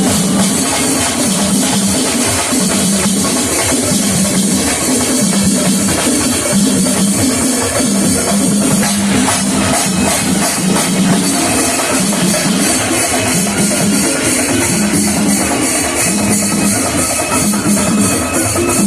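Loud, continuous drumming with clashing cymbals, a steady repeating beat.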